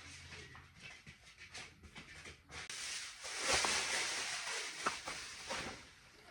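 Rustling of packaging as supplies are unpacked, swelling for a few seconds in the middle, with a few small knocks.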